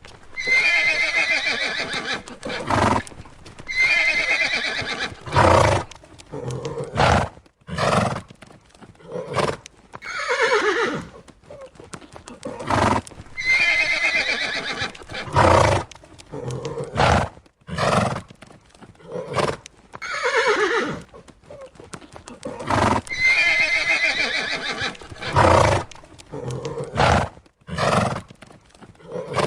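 Horses neighing again and again: high, quavering whinnies that slide down in pitch, with short sharp sounds between the calls.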